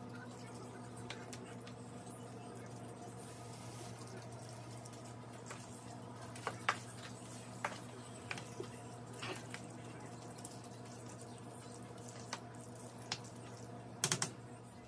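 Metal serving spoon and ladle clicking and tapping against a steel pan of macaroni and cheese, in scattered single taps from a few seconds in and a quick run of taps near the end. A steady low electrical hum underneath.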